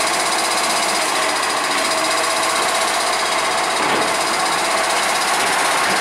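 Diesel engine of an Iveco Acco garbage truck running steadily while its Bucher side-loader arm tips a wheelie bin into the hopper.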